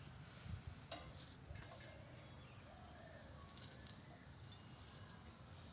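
Near silence: a paratha crackling faintly on a non-stick tawa, with a few light clicks of a metal spatula.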